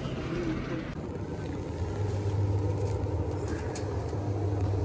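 Steady low hum of shop ambience, louder from about two seconds in, with a plastic produce bag rustling faintly near the end.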